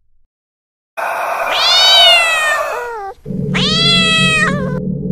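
Cat meowing: two long, drawn-out calls, each rising and then falling in pitch, the second following right after a brief gap. Both start and cut off abruptly.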